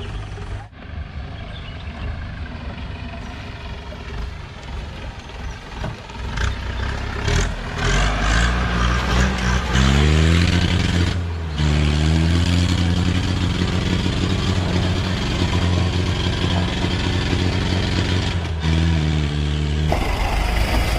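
Off-road jeep engine working hard on a muddy track, revving up several times with the pitch climbing, and getting louder about six seconds in.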